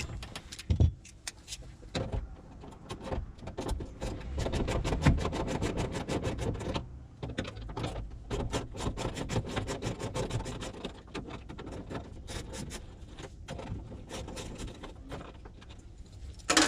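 Hand tools working loose a bolted metal bracket inside a vehicle: long runs of rapid clicks and small metallic knocks, with a low rumble underneath.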